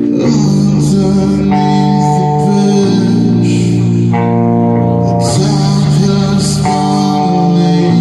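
Doom metal band playing live: heavy electric guitar and bass holding slow, sustained chords that change every second or so, over drums and cymbals.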